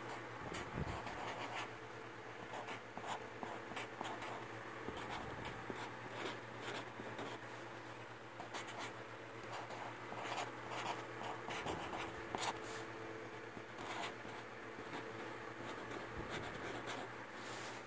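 Felt-tip marker writing on cardboard: short, irregular scratching strokes as letters are drawn, over a steady low hum.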